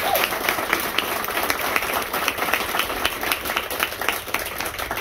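A small group of people applauding, many hands clapping together and thinning slightly toward the end.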